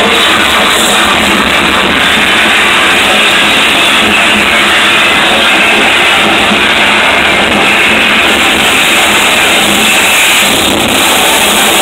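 Harsh noise music played live on electronics: a loud, dense, unbroken wall of distorted noise that holds steady throughout.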